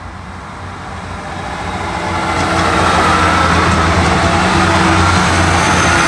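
Class 158 diesel multiple unit running past along the platform, its underfloor diesel engines humming under rail and wheel rumble. It grows louder over the first three seconds as it comes close, then stays loud and steady as the carriages go by.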